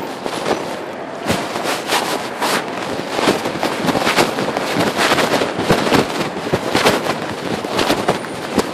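Pocket fabric rubbing and scraping against a smartphone's microphone as its owner walks: a loud, dense, irregular crackling.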